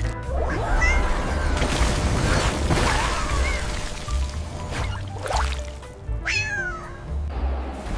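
Cat meowing several times over background music with a heavy bass.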